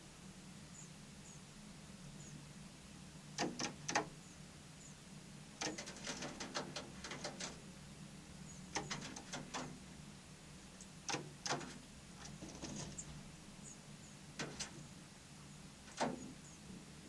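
Irregular clusters of sharp taps and knocks, the loudest sounds, with faint short high bird chirps scattered between them over a steady low hum.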